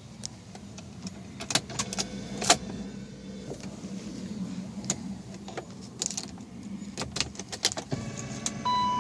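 1998 BMW 528i, heard from close by: a steady low hum with irregular clicks and taps throughout. A steady electronic tone starts near the end.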